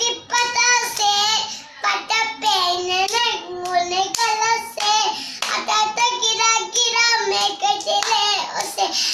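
A young girl singing a children's song on her own, without accompaniment.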